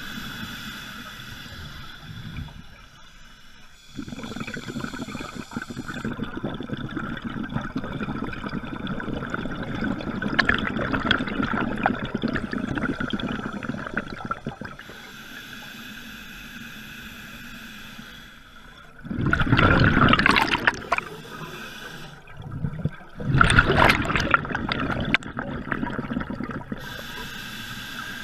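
Scuba diver breathing underwater through a regulator, a muffled rush of air with a faint steady whine beneath it. Two loud bursts of exhaled bubbles come about two-thirds of the way in, a few seconds apart.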